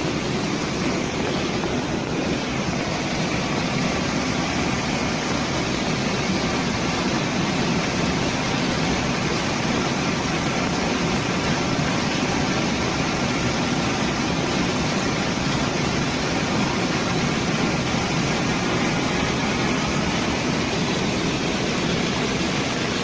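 Village waterfall running high with floodwater after heavy rain: a steady, loud rush of falling water that never lets up.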